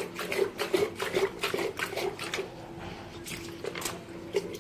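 Water sloshing and splashing inside an old lead-acid battery case as it is shaken to rinse out the black sediment, in quick strokes about four or five a second that thin out after about two seconds.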